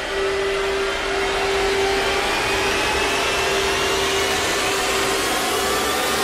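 Trailer sound-design build: a dense rushing noise under one held drone note, with a thin whine slowly rising in pitch, at a steady loud level.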